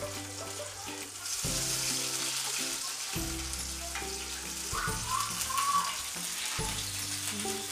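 Batter-coated dandelion flowers deep-frying in hot oil, a steady sizzle that grows denser about a second and a half in, with background music underneath.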